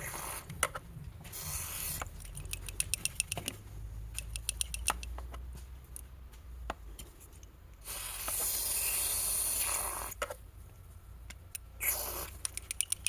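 Bursts of aerosol cleaner spraying, the longest lasting about two seconds, alternating with runs of quick, light clicking rattles from a small PCV valve being handled and cleaned.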